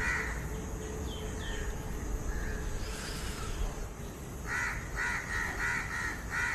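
A bird calling: short repeated calls, a couple at the start and a quick run of about five near the end, over a faint steady hum.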